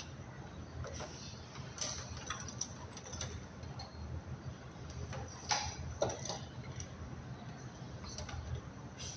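Light plastic clicks and taps of wire connectors being pushed into the indoor unit's control board and wires being handled, at irregular intervals with two louder clicks around the middle, over a low steady hum.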